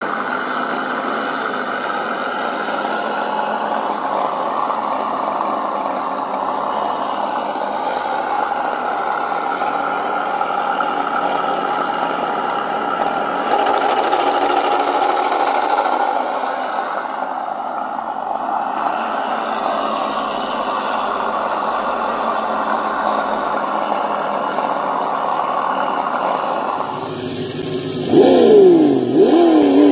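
Small motor of a custom radio-controlled scale crawler truck running with a steady hum. Near the end its pitch swings up and down quickly, about twice a second, like repeated throttle blips.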